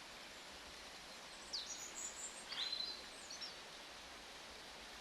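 A bird calling a short burst of high chirps and quick pitch sweeps, starting about a second and a half in and lasting about two seconds, over a steady outdoor hiss.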